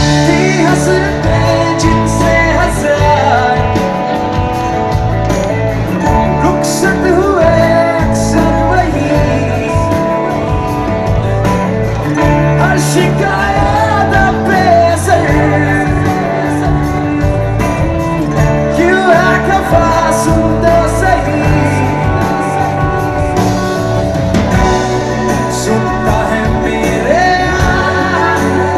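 Live band playing through a concert PA: a singer over strummed acoustic guitars and drums, continuous and loud.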